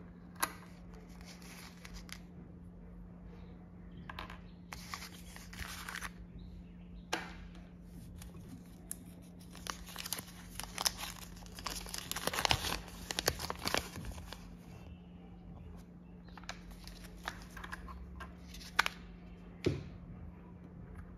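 Plastic wrapping of a Kinder Joy toy being torn open and crinkled by hand, in several spells of rustling, with a few sharp clicks as small plastic toy parts are handled.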